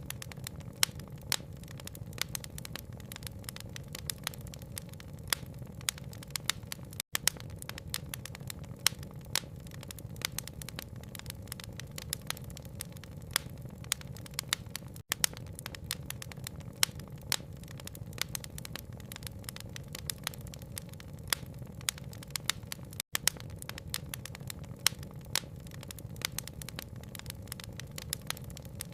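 Wood fire crackling in a fireplace, with dense sharp pops and crackles over a steady low rumble, mixed with rain patter. The sound cuts out for an instant about every eight seconds.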